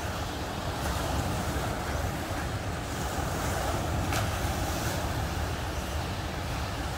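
Ocean surf breaking and washing up the sand in a steady rush, with wind buffeting the microphone in a low rumble.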